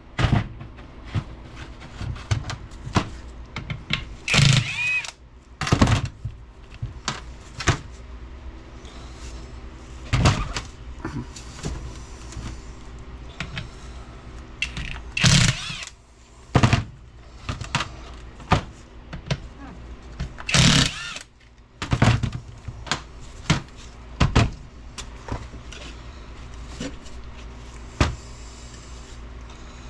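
Scattered clinks and knocks of hand tools and loosened bolts on an NP205 transfer case as its cover is unbolted, with a few louder ringing metal strikes, over a steady low hum.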